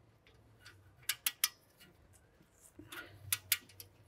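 A few sharp metal clicks from a torque wrench and socket being set on a brake caliper carrier bracket bolt and ratcheted, in two small groups about two seconds apart.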